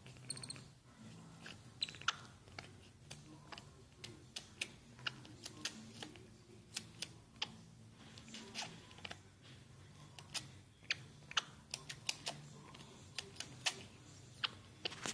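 Small, sharp wet clicks and smacks, irregular at about two a second, from a capuchin monkey's mouth as it nuzzles and grooms newborn puppies.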